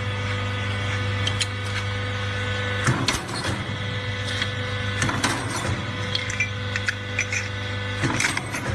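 Hydraulic punching and shearing machine running: a steady hum from its pump motor, with sharp metallic knocks as the punch goes through the metal, about three seconds in, five seconds in and eight seconds in, where the hum changes under the load.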